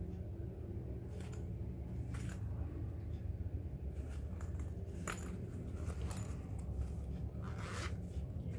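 A thick canvas pouch being handled: soft rustles of the fabric and light metallic clicks of its gold zipper pull. Near the end the zipper is pulled open. A steady low hum runs underneath.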